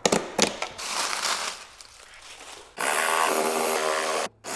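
Cordless power tool cutting in short runs: a brief burst about a second in, then a louder, longer run with a motor whine near the end that cuts off abruptly and starts again.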